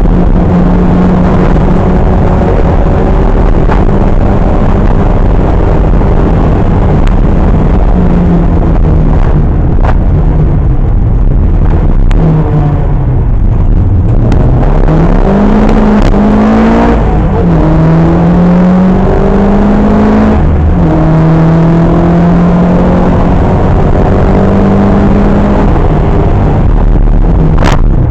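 Historic rally car's engine at full stage pace, heard from inside the cabin, loud and harsh. It holds a steady pitch, drops back when the driver lifts, then climbs through the gears with quick shifts in the middle. A sharp knock comes near the end.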